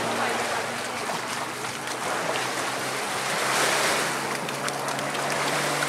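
Distant aerobatic propeller plane's engine droning as it dives, its pitch stepping up twice, over a steady rushing noise that swells about halfway through.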